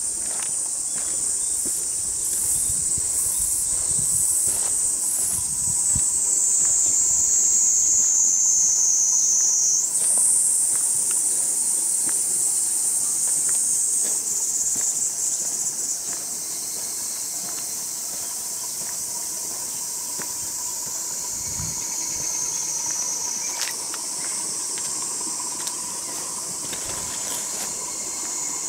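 Insects buzzing in a high, continuous chorus that slowly sinks in pitch, jumps back up about ten seconds in, then eases off a little. Near the start a second insect adds a faster on-off pulsing above it.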